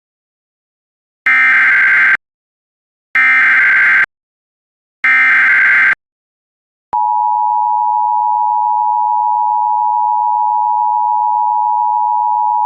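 Emergency Alert System SAME header for a new alert: three bursts of digital data screech, about a second each. After a short gap, the steady two-tone EAS attention signal, just under 1 kHz, comes in a little past halfway and holds.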